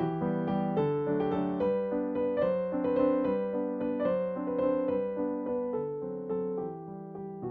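Background music: a gentle piano melody with chords.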